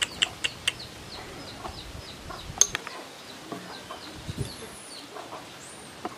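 Domestic chickens clucking, a quick run of sharp clucks followed by short high falling chirps repeated several times a second. There is one loud sharp click about two and a half seconds in.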